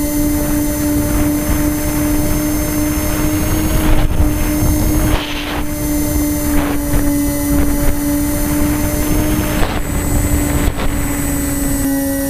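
Electric motor and propeller of a SkyMule RC plane running at a steady high pitch at climb throttle, heard from the onboard camera, with air rushing over the microphone.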